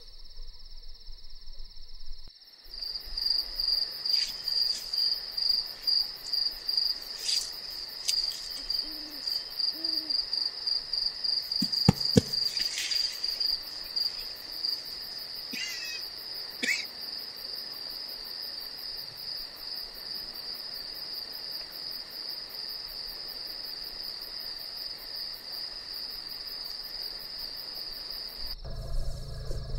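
Crickets chirping in a steady pulsing chorus, starting a few seconds in and cutting off abruptly near the end. Two short low hoots come near the middle, followed by a few sharp snaps.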